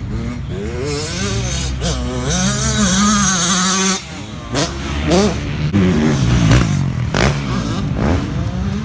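Motocross bike engines revving hard, the pitch climbing and dropping through gear changes. One bike rises to its loudest near three seconds and stops abruptly about four seconds in, then several more rev up and down in quick succession.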